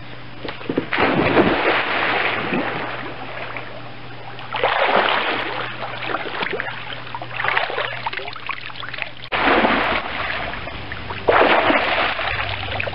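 A person jumping off a diving board into a swimming pool: a big splash about a second in, then several more bursts of splashing and sloshing water, and water pouring off him as he stands up near the end.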